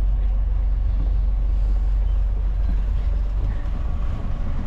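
Motor cruiser's inboard engines idling alongside the pontoon, a steady low rumble that eases briefly near the end.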